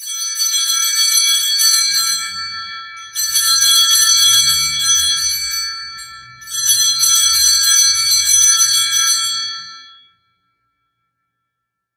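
Altar (sanctus) bells rung three times at the elevation of the chalice, just after the consecration. Each ring is a jangling cluster of high bell tones that dies away, coming about three seconds apart.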